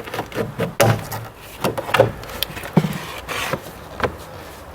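Plastic cowl cover below the windshield of a 2010 Audi A6 being pried and lifted off by hand: a series of scattered plastic clicks and knocks, about half a dozen sharp ones.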